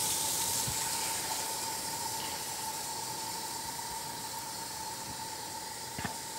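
Kitchen tap running water into a measuring cup: a steady rushing hiss with a steady tone under it, easing slightly and stopping near the end.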